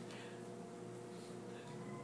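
Quiet room with a faint steady hum and a few soft ticks.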